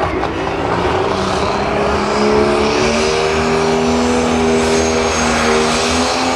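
Turbocharged diesel Pro Stock pulling tractor running hard during a pull. Its engine note rises over the first two seconds and then holds, with a high turbo whistle climbing slowly above it.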